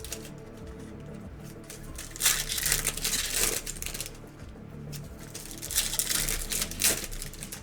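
Foil trading-card pack wrappers crinkling and being torn open, in two bursts: one about two seconds in and another near six seconds in. Quiet background music plays under it.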